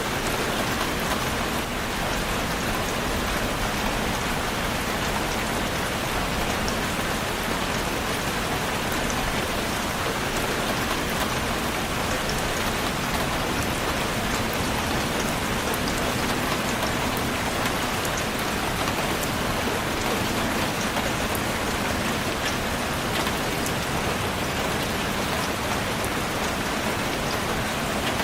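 Steady rainfall with scattered drops ticking on a surface.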